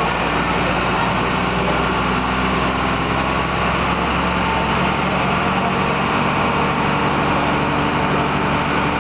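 Fire truck's engine and aerial-ladder hydraulics running steadily as the ladder is raised. The deepest part of the hum drops away about halfway through while the rest carries on unchanged.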